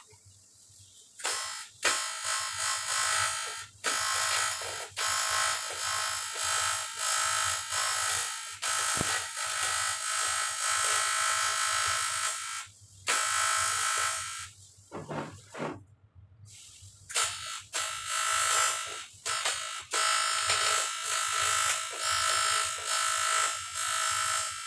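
Stick (arc) welding on a water jacket: the arc buzzes and crackles in runs of several seconds. It starts about a second in, drops out briefly a few times as the arc breaks, and stops for a few seconds near the middle before running on.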